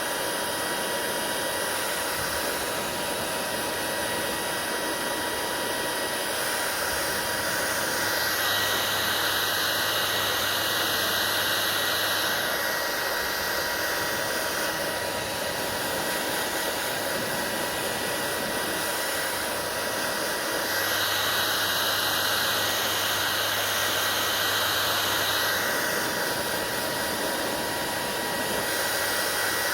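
Hair dryer blowing continuously, a steady rushing with a faint whine. Twice, for about four seconds each, its sound shifts, taking on a brighter hiss and a low hum before settling back.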